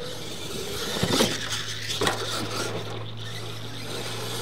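RC monster truck knocking and clattering against wooden jump ramps, with tires scrabbling over loose dirt; two sharp knocks come about one and two seconds in.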